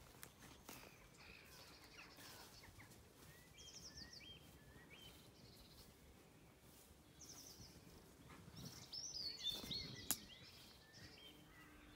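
Faint birdsong from several small songbirds: short rapid high trills and chirps, growing louder for a moment about nine to ten seconds in, with a single sharp click just after.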